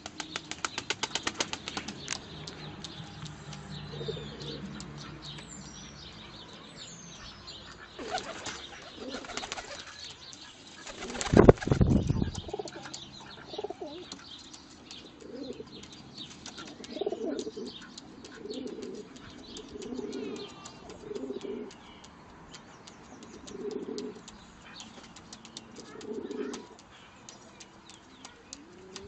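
Domestic pigeons mating, with rapid wing flapping in the first few seconds. A single loud low thump comes about halfway. After that, pigeons coo repeatedly, short low coos every second or two.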